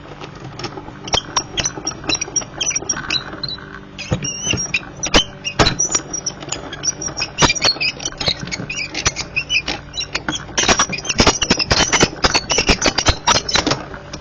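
Die-cutting machine running a cutting die sandwich with thick cardstock through its rollers, a dense run of clicks and squeaks that gets busier about ten seconds in.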